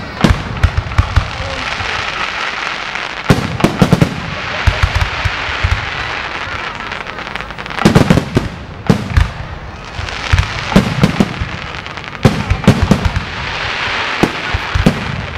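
Aerial firework shells bursting in quick clusters of sharp bangs, the clusters coming every few seconds, with a steady hiss between them.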